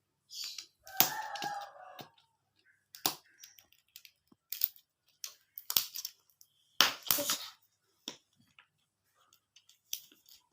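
Gift wrapping being torn and crumpled open by hand: bursts of crackling and rustling, about six of them, with pauses in between.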